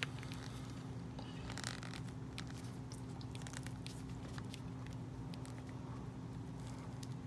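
Handling noise of a small plastic doll hat being pushed and worked onto a doll's head and hair: scattered small clicks and scratchy rustles, the most noticeable rustle about a second and a half in, over a steady low hum.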